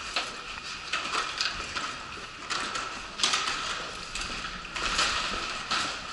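Footsteps on a hard corridor floor, a clack about once a second, with the rolling of a wheeled suitcase, over a faint steady high hum.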